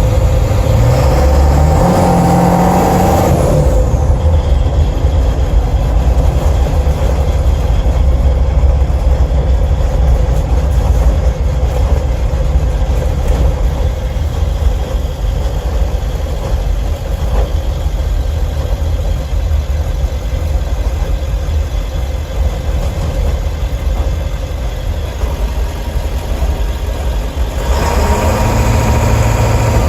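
7.3-litre Power Stroke turbo-diesel V8 running under way, heard from beside the engine cover inside the cab, as a loud steady low rumble. Extra pitched tones sound in the first few seconds and again near the end.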